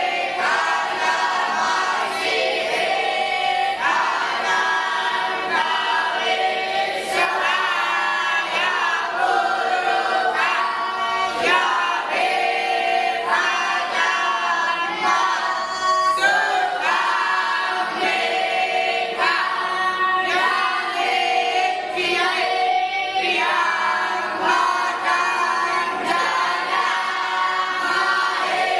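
A group of voices singing or chanting together in unison, a continuous melodic chant with held notes that step and glide from one pitch to the next.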